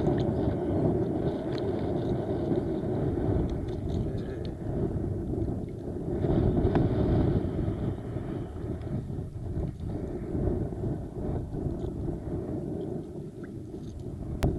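Wind buffeting the microphone, a loud, unsteady low rumble that swells and eases.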